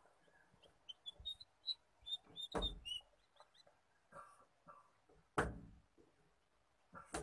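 Faint outdoor scene with a small bird chirping in a quick run of short, high notes. Two louder, short dull thuds come about two and a half and five and a half seconds in.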